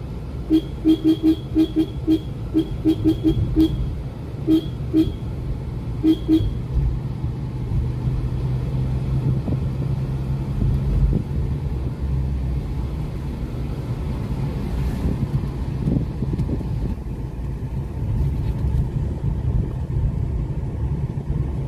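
Car horn sounded in runs of short, rapid beeps for the first six seconds or so. Under it and after it, the steady low rumble of a car's engine and tyres on the road, heard from inside the cabin.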